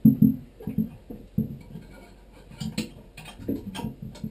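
A flathead screwdriver turning the square-head screw of a hose clamp on a Vacuflush marine toilet: light metallic clicks and ticks, with dull knocks and bumps against the toilet base, the loudest knocks right at the start.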